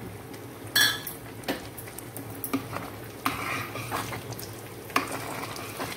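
A steel spoon stirring a thick, simmering rice-and-jaggery pudding in a stainless steel pot, with a few scattered clinks of the spoon against the pot, the sharpest about a second in.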